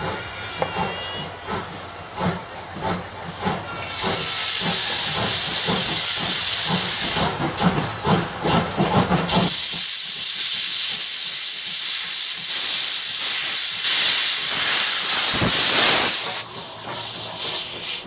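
JNR Class C57 steam locomotive working hard at close range. Rhythmic exhaust chuffs give way twice to loud, steady hissing of steam blasting from the open cylinder drain cocks: from about four to seven seconds in, and again from about nine and a half to sixteen seconds. The chuffing and running clatter return near the end.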